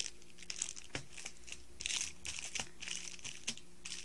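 A stack of paperback manga volumes being handled and shuffled by hand: repeated short rustling and crinkling of paper and covers, with a few light taps as the books knock together.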